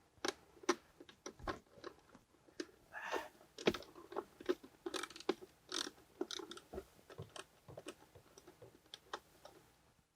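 Irregular small clicks, taps and scrapes of a 7 mm socket on a hex-head screw as the screw is turned out of the glove box latch by hand.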